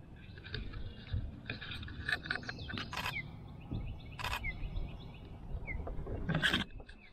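Osprey calling: a run of short, high whistled chirps with a few brief downward-slurred notes. Three louder short noises cut in about three, four and six and a half seconds in, the last the loudest.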